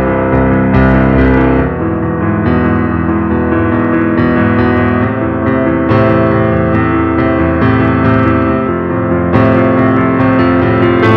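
Background music: a piano or electric-piano melody with guitar, a new note or chord about every second.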